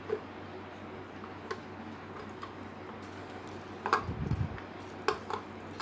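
Plastic food-processor bowl being handled as meat is taken out around the blade: a few light clicks and knocks, with a duller thump about four seconds in.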